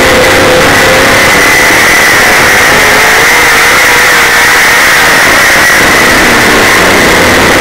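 Super late model dirt race car's V8 engine running hard at racing speed, heard from inside the car, very loud. Its pitch dips and climbs again with the throttle as the car goes through the turns.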